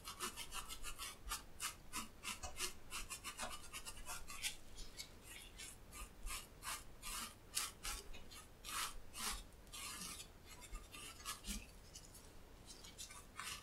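Smoke sponge, a natural-rubber dry-cleaning sponge, scrubbed quickly back and forth over a dirty cork strip: quiet, dry scratchy rubbing strokes, a few a second, dying away near the end.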